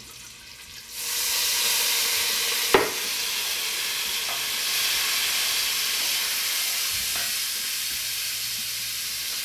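Red wine poured into a hot enamelled cast-iron Staub cocotte, sizzling and steaming loudly on the browned meat juices as it deglazes the pan. The sizzle starts suddenly about a second in and carries on steadily, with a single sharp knock a couple of seconds later.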